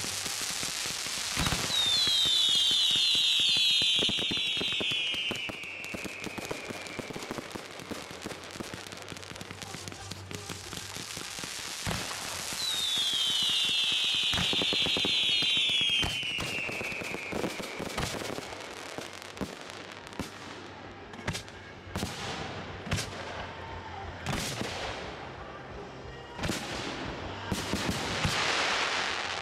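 Aerial fireworks going off: twice, a cluster of many whistling effects sounds together, each whistle gliding down in pitch over about five seconds. In the last ten seconds a run of sharp bangs from shells being fired and bursting follows.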